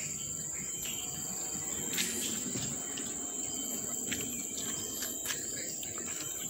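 Insects buzzing steadily at one high pitch, with a few soft taps about two, four and five seconds in.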